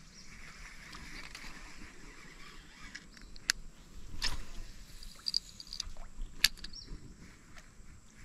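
A lure being cast with a Bullzen Tomahawk baitcasting reel and rod: sharp clicks from the reel and rod handling, the loudest about three and a half seconds in and again near six and a half seconds, over a faint steady hiss.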